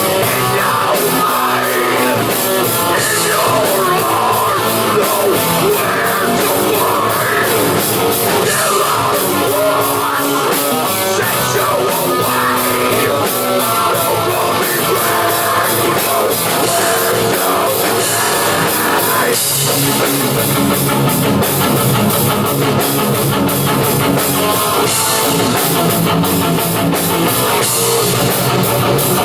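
Live rock band playing loud and steady: electric guitars, bass and drum kit. The arrangement changes about two-thirds of the way through, with a heavier low end after the change.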